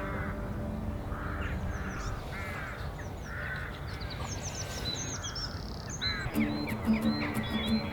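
Corvids calling over and over in short calls, with small birds chirping high above them, over soft background music whose notes grow louder about six seconds in.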